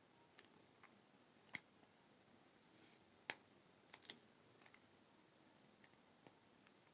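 Near silence broken by faint, scattered clicks and taps of small jewelry-making tools and brass wire being handled, the two loudest about one and a half and three and a half seconds in, then a quick pair just after four seconds.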